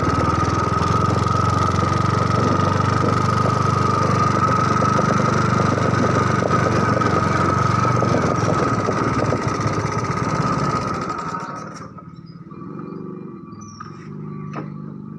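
An engine running steadily close by, with a constant whine over a low rumble. It drops away sharply about three-quarters of the way through, leaving a much quieter background with a few light knocks.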